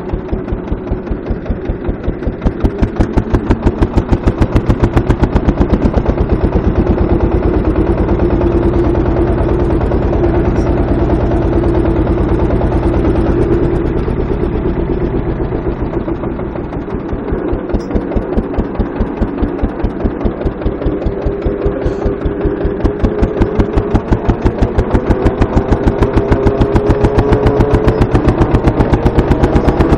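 Deutz F1M414 tractor's single-cylinder diesel engine running while driving, its firing strokes coming as a fast, even pulse. It eases off briefly around the middle, then picks up speed again toward the end.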